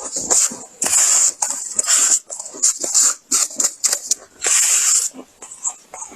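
Close-up crunching and chewing of mouthfuls of freezer frost: a run of irregular crisp crunches, with two longer, louder crunches about a second in and about four and a half seconds in.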